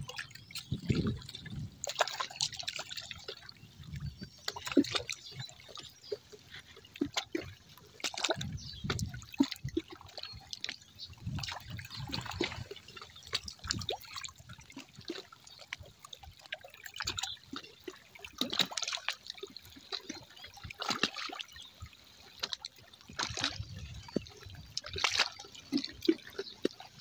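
Small sea waves washing onto the shore, with irregular splashing and trickling water.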